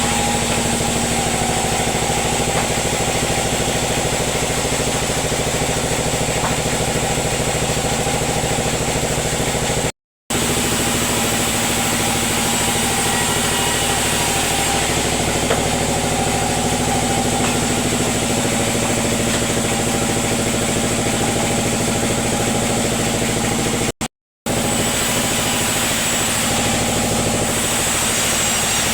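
Sawmill machinery running steadily with a constant mechanical hum and hiss. The sound cuts out completely for a moment twice, about ten seconds in and again near twenty-four seconds.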